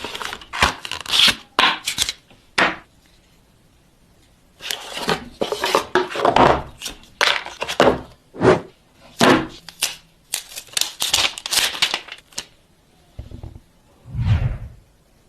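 A smartphone box and its packaging being opened by hand: tearing, scraping and rustling in quick strokes, with a pause about three seconds in, then two dull low thuds near the end.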